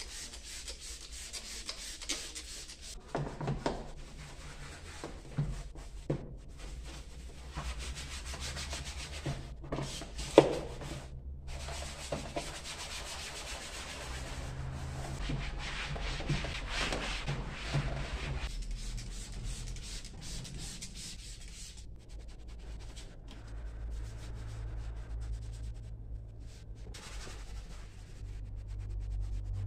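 Brush and cloth scrubbing and rubbing on the plastic door panel and dashboard trim of a Nissan Navara, a continuous scratchy rubbing with a few sharp knocks, the loudest about ten seconds in. A low steady hum runs underneath.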